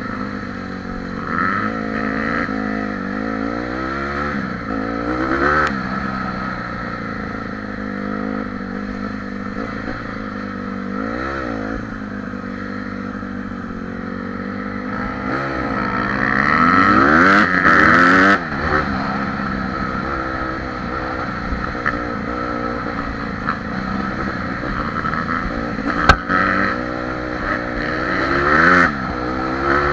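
Honda CRF150R dirt bike's single-cylinder four-stroke engine running on a trail ride, its revs rising and falling with the throttle, with the longest, loudest rev-up about halfway through. A single sharp knock near the end.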